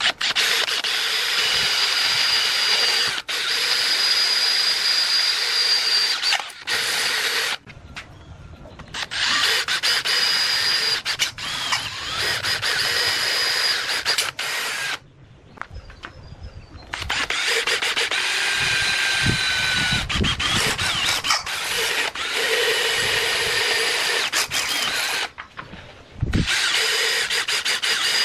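Cordless drill boring holes through square steel tubing with a twist bit: a steady motor whine over the grind of the bit cutting metal. It comes in several long runs broken by short pauses.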